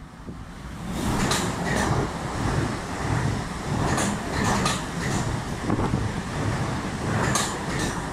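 Two coupled Class 444 Desiro electric multiple units passing at speed: a loud, steady rumble of wheels on rail that swells in about a second in, broken by sharp groups of wheel clacks roughly every three seconds.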